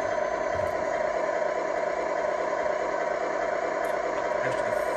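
Sound module of a 1/14-scale RC semi truck playing a steady idling truck-engine sound.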